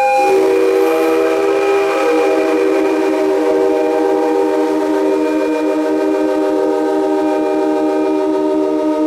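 Train whistles and horns blowing in a long, steady blast. A higher-pitched blast cuts off just after the start, and a lower chord of several pitches takes over and holds unbroken, loud throughout.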